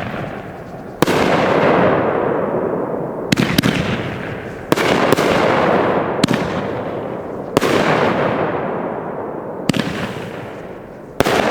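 A 500 g multi-shot fireworks cake (Magnus 'Catching Fire') firing shot after shot. About eight sharp bangs come a second or two apart, some as quick doubles, and each trails off in a long fading hiss.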